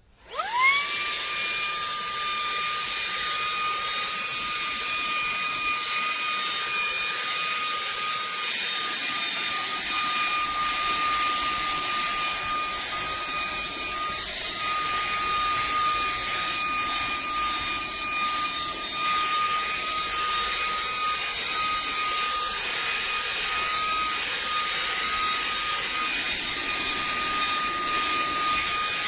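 Shark WandVac 2.0 cordless handheld vacuum switched on: its motor spins up within a second to a steady high whine over a rush of air, and runs on evenly.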